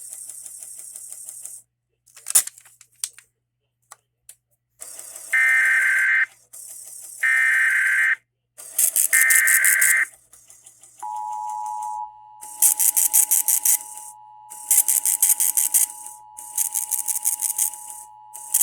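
Emergency Alert System test: three short, harsh screeching data bursts (the SAME header) about two seconds apart, then the two-tone EAS attention signal, a steady dual-tone buzz held about eight seconds with a rhythmic crackle over it.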